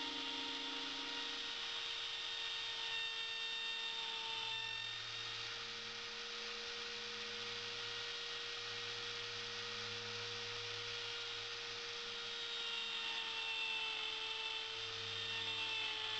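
Router motor running with a steady whine as its bit cuts a spinning wooden blank on a woodturning lathe, the router guided back and forth along a template. Its pitch sags slightly a couple of times near the end.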